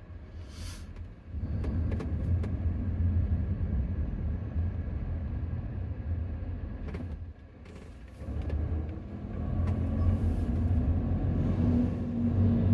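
Road and engine noise inside the cabin of a 2018 Dodge Grand Caravan minivan driving through town, a steady low rumble. It dips briefly about seven seconds in, then grows louder toward the end.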